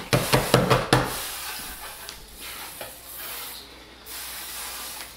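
Aerosol cooking spray hissing in several short bursts onto a loaf pan. A quick run of sharp taps comes in the first second.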